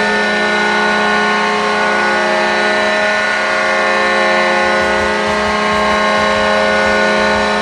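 Atlanta Thrashers ice hockey goal horn sounding one long, loud, unbroken tone.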